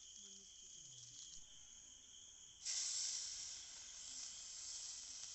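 Food goes into hot oil about halfway through and sets off a sudden loud sizzle that carries on steadily. Underneath, insects chirr steadily throughout.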